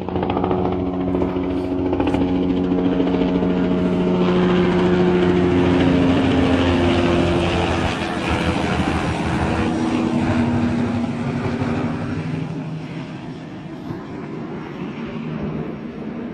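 Helicopter flying low overhead: rotor and engine noise builds to its loudest about five seconds in, its tones dropping in pitch as it passes, then fades away.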